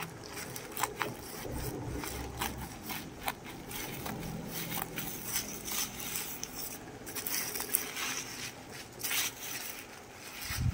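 Scissors cutting through a plastic bubble mailer, the plastic crinkling and crackling in irregular snaps as it is cut and pulled open.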